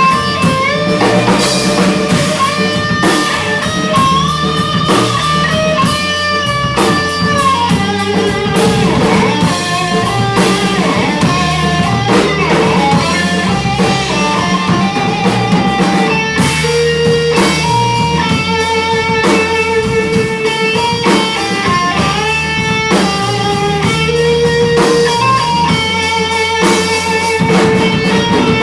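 Guitar music played live: a single-note melody with held notes over a steady rhythmic accompaniment.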